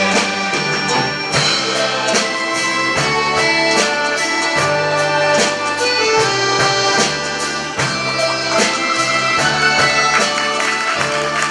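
Orchestra of folk instruments playing an instrumental interlude between sung verses, with a steady beat.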